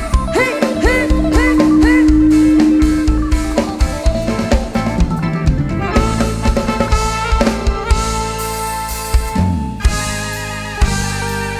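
Instrumental break of a live Isan molam band: a drum kit keeps a fast, steady beat under sustained and bending melody notes from guitar and keyboard.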